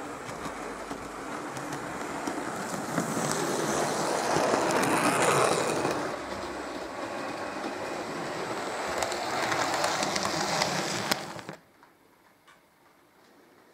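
H0-scale model train running along the layout's track, a steady clattering rumble of wheels on the rails with fine clicks. It cuts off suddenly near the end, leaving faint room tone.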